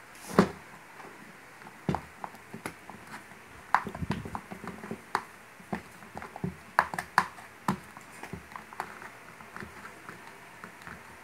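Scattered small clicks and taps as a screwdriver works the screws out of an electric drill's plastic housing and the drill and parts are handled, with one sharper knock about half a second in.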